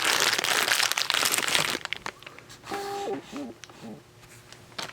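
Crinkling and rustling of plastic packaging as a foot pedal and its cord are handled, dense for the first two seconds, then dying away. A brief pitched hum follows about three seconds in.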